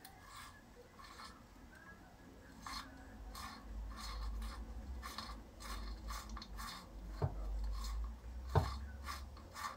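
Crankcase bolt being threaded into a chainsaw's aluminium crankcase with a hand tool: a run of short, rasping metal-on-metal scrapes as it is turned, with two sharp clicks near the end.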